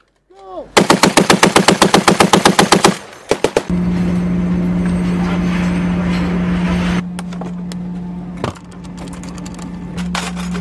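Browning M2 .50 calibre heavy machine gun firing a rapid, evenly paced burst of about two seconds, then a few more shots. A steady low hum follows, with scattered clicks near the end.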